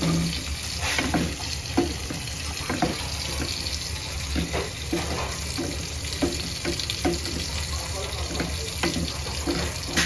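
Light clinks and knocks of a utensil against cookware, one or two a second, over a steady hiss in the kitchen.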